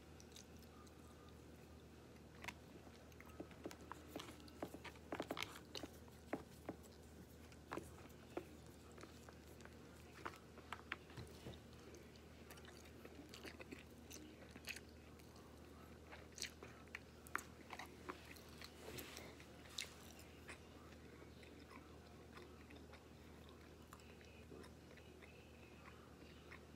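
A person eating close to the microphone: chewing and slurping takeout noodles and breaded shrimp, with many short, scattered smacks and clicks.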